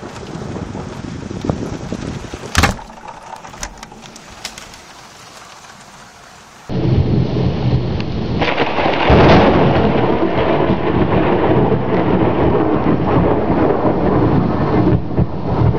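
Steady rain with a few sharp clicks and one loud snap about two and a half seconds in. About halfway through the sound cuts to heavy rain under rolling thunder, which swells a couple of seconds later and keeps rumbling.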